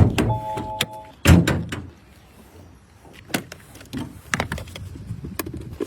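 A car door shutting with a heavy thud, a short electronic beep of three steady tones, a second heavy thud about a second later, then scattered light clicks and knocks.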